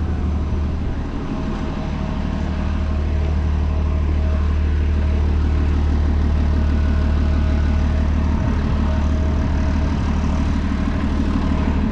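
City transit bus's diesel engine running close by: a steady low hum that swells slightly about three seconds in and then holds.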